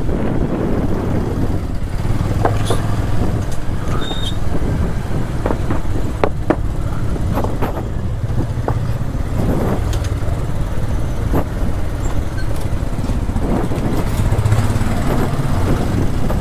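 Motor vehicle running along the road, a steady low rumble with scattered short knocks and rattles, most of them in the first half.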